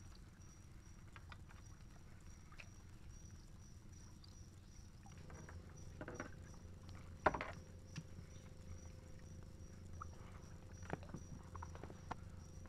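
Faint scattered clicks and knocks, the loudest about seven seconds in, over a steady high-pitched tone and a low hum.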